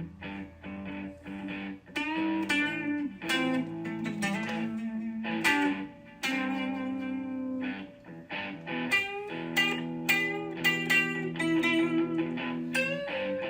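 Background music: plucked guitar notes over sustained chords.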